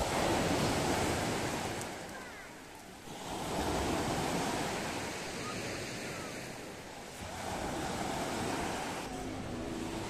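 Small Black Sea waves breaking and washing on a pebble beach, the surf swelling three times, about every three to four seconds.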